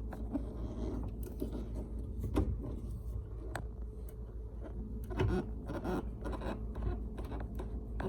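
Hand screwdriver driving a screw into a cabinet hinge: scattered small clicks and short scrapes of metal on wood, over a steady low hum.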